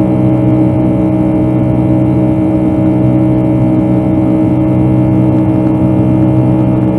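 Boeing 757-200's jet engines heard from inside the passenger cabin as a steady loud drone with a constant hum, holding even pitch and level throughout.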